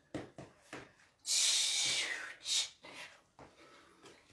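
A dancer's breathing into a close microphone while dancing: a few short soft knocks, then a long hissing exhale about a second in, followed by a few shorter breaths.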